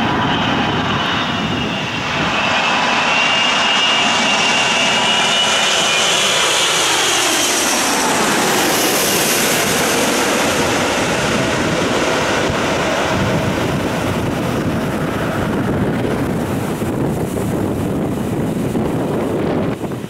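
Emirates Airbus A380-861's four Engine Alliance GP7200 turbofans passing low overhead on landing approach. Loud, steady jet engine noise with a high fan whine that drops in pitch as the aircraft goes by, about halfway through.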